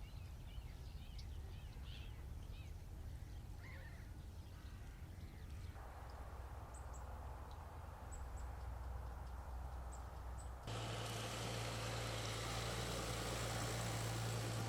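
Outdoor ambience: birds chirping over a low rumble for the first few seconds. The sound then changes abruptly twice, ending in a louder steady hiss with a low, constant drone.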